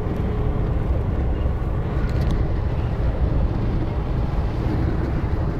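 Steady low rumble of a Mercedes-Benz Actros truck driving on the road, its engine and tyre noise heard from inside the cab.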